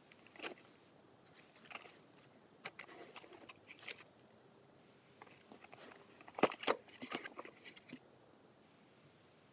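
Cardboard firecracker box being handled: put down, lifted, and its flap opened with scattered taps and rustles. The loudest is a pair of knocks about six and a half seconds in, and the handling stops about eight seconds in.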